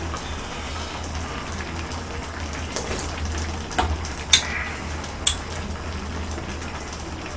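Pot of aged-kimchi pork-bone stew simmering on a portable gas burner, a steady bubbling hiss, with three sharp clinks of spoon and chopsticks against the dishes around the middle, the second loudest.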